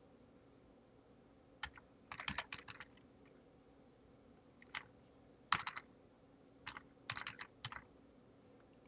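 Typing on a computer keyboard: a few quick runs of keystrokes separated by short pauses.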